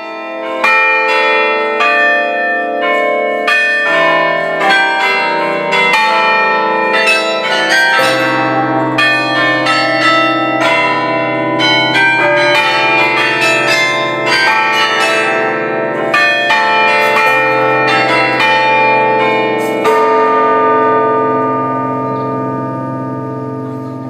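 Carillon bells of the Bruges Belfry playing a tune: many bronze bells struck one after another in quick succession, each note ringing on over a deep bell hum. The last notes come about twenty seconds in and are left ringing and slowly fading.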